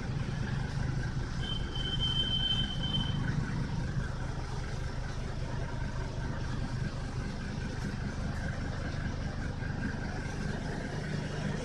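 Mercedes-Benz W123 five-cylinder diesel engine idling steadily, heard from inside the cabin as a low, even clatter. A brief high-pitched tone sounds about a second and a half in and lasts under two seconds.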